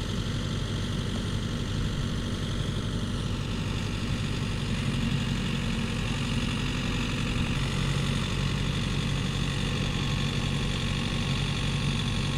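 Diesel engines of a farm tractor and a Yanmar combine harvester running steadily as the tractor tows the harvester stuck in mud, getting a little louder about five seconds in.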